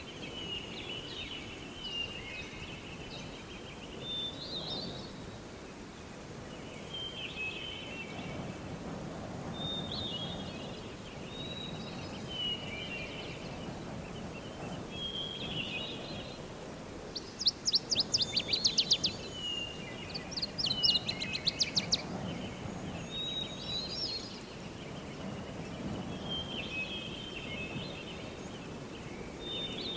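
Forest ambience: songbirds repeat short chirping phrases every second or two over a low, steady rumble. About halfway through come two loud bursts of rapid clicking or rattling, a second or two each, the loudest sounds here.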